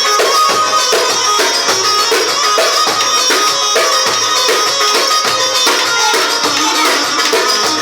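Turkish çiftetelli dance music, played loud and steady with dense, fast percussion strokes under a melody line.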